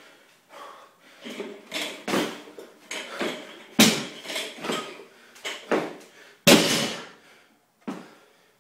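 Barbell loaded with rubber bumper plates (185 lb) set down and dropped on the floor during power cleans: a run of knocks and thuds, the two loudest about four and six and a half seconds in.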